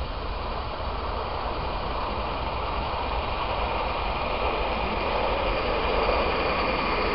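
16mm-scale live steam locomotive hauling a short train of wagons and a coach along garden railway track, a steady running noise that grows slowly louder as it approaches and passes close by.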